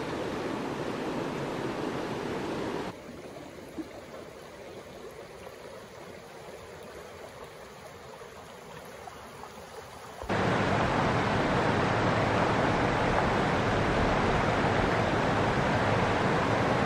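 Mountain creek water flowing, heard as a steady hiss that changes sharply at cuts between shots. It drops much quieter about three seconds in, then turns loud from about ten seconds in, where the stream runs over rocks and small rapids.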